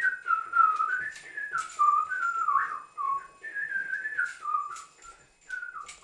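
A person whistling a lively tune that steps up and down between short held notes, with sharp clicks about twice a second keeping time.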